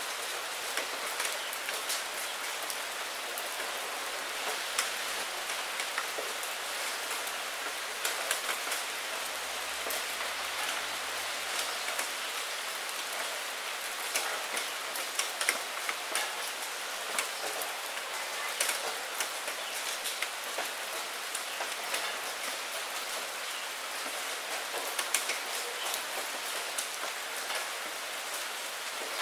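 Steady rain, an even hiss with many separate drop hits standing out from it.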